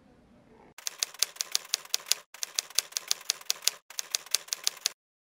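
Typewriter keys striking in quick succession, about seven keystrokes a second with two short breaks, as a title is typed out; the typing cuts off suddenly near the end.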